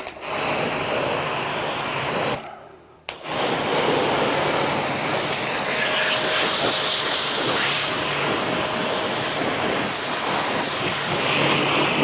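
Shakti Technology S5 pressure washer spraying a steady, hissing jet of water, shut off for a moment about two and a half seconds in and then started again.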